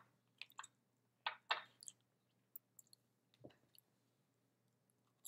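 Faint, close-miked eating sounds: a handful of short clicks and smacks from chewing and from metal chopsticks dipping shrimp tempura into a sauce dish, then a few fainter ticks, over a low steady hum. A louder crunch begins right at the end.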